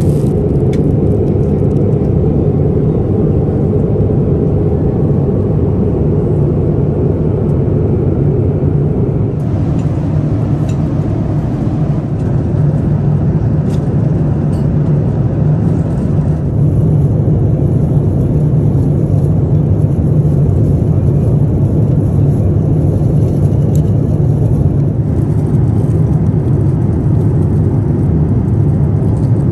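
Steady low rumble of a Boeing 787-9's cabin in cruise, the noise of airflow and engines heard from a passenger seat. Its tone shifts slightly twice, about 9 and 16 seconds in.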